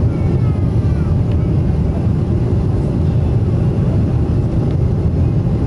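Steady low rumble of a Boeing 777-300ER heard from inside the cabin as it descends on approach: engine and airflow noise from its GE90 engines.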